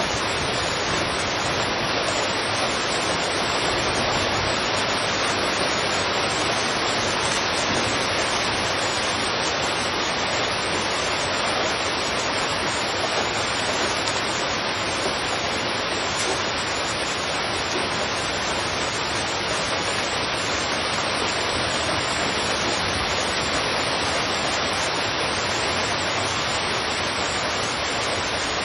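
Heavy rain falling steadily on a street, an even hiss with no single drops or thunder standing out.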